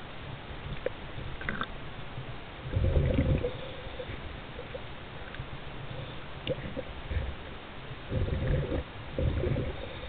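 A scuba diver's exhaled bubbles, heard muffled through an underwater camera housing: three low bubbling rushes, one about three seconds in and two close together near the end, over a steady low underwater rumble.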